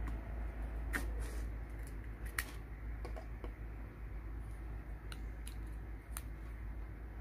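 Scattered small clicks and knocks of plastic USB testers and USB plugs being handled, pulled out and pushed in, the loudest about two and a half seconds in, over a steady low hum.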